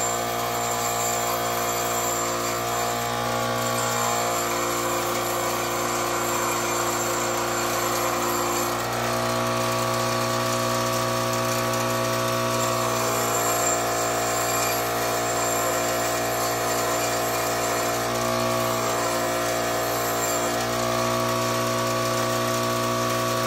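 Bench grinder motor running steadily with a hum, its wheel grinding a metal knife guard now and then.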